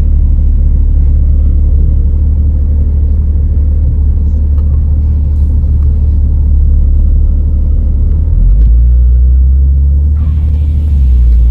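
Off-road vehicle's low, steady rumble, deepening about eight seconds in.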